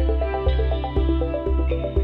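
Instrumental background music with a low beat about twice a second and a quick pattern of notes running above it.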